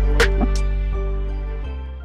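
Background music with deep bass notes and a drum hit, getting steadily quieter toward the end.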